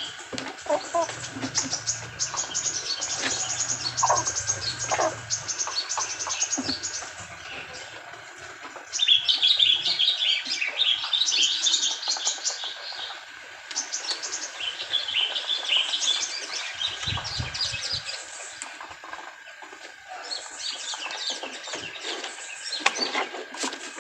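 Birds chirping and twittering, short high chirps throughout, with dense bursts of chirping about nine seconds in and again about fifteen seconds in. A steady faint high tone runs underneath.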